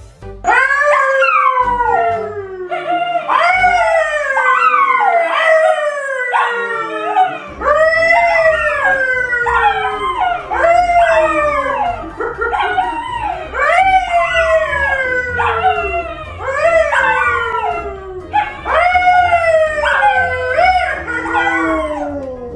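Two dogs, a yellow Labrador and a curly-coated brown dog, howling together with a man howling along. Long howls fall in pitch and overlap, starting again every second or two.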